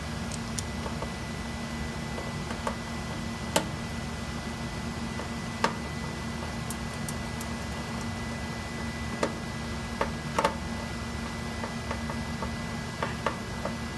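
Scattered small metallic clicks and ticks as a grounding wire, washer and nut are fitted by hand onto a threaded stud on a UPS battery module's sheet-metal panel, the sharpest about three and a half seconds in and a quick pair around ten seconds. Under them runs a steady low hum with a thin high whine.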